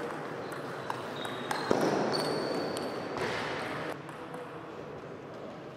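Table tennis rally: the ball clicking off the bats and the table in a string of sharp, irregular taps, with a louder hit a little under two seconds in.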